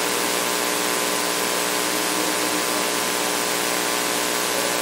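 A steady hiss with a faint hum underneath: continuous background noise of the hall and sound system, with no distinct drinking sounds standing out.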